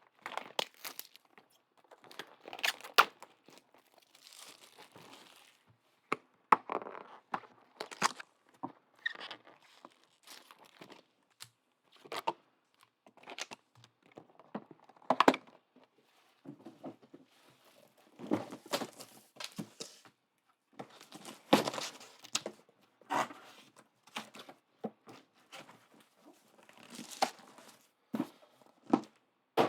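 Trading card pack wrappers being torn open and crinkled by hand, with irregular rustling and sharp clicks throughout.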